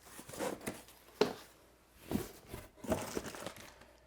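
Packaging being handled and crinkled while parts are taken out of a box: irregular rustling, with a sharp knock about a second in.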